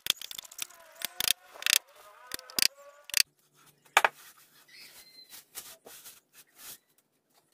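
Hammer knocking nails into a plywood ring frame: a quick, irregular run of sharp knocks, loudest in the first four seconds, then lighter taps.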